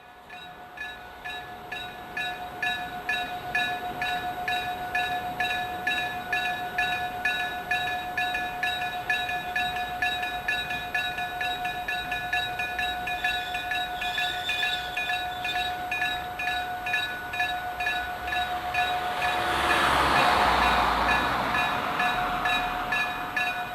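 Electric-bell (denshō) level-crossing warning bell ringing with evenly repeated metallic strikes, the sign that a train is approaching. A Meitetsu Tanigumi Line train runs by under it, loudest a few seconds before the end.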